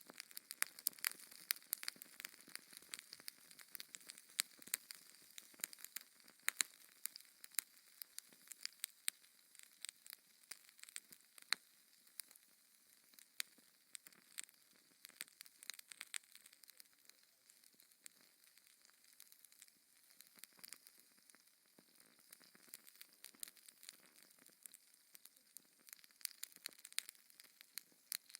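Wood fire in a fireplace crackling: many irregular sharp pops and snaps over a faint hiss of burning.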